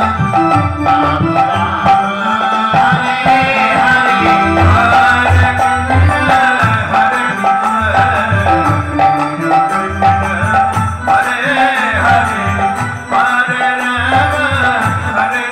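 Live folk music accompanying a dance: a hand drum beats under the held notes of a harmonium.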